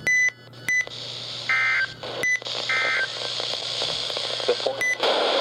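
Weather radio broadcast audio after a snow squall warning: a few short electronic beeps, then two brief warbling digital data bursts about a second apart, typical of the EAS end-of-message code, over a steady static hiss.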